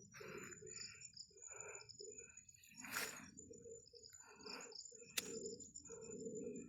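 Birds chirping in short repeated calls over a steady, thin, high insect-like tone, with two sharp clicks, about 3 and 5 seconds in.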